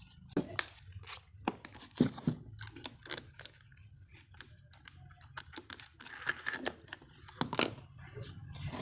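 Handling noise of a sheet of 400-grit sandpaper being rustled and crinkled, with scattered small clicks and taps at irregular intervals over a faint steady hum.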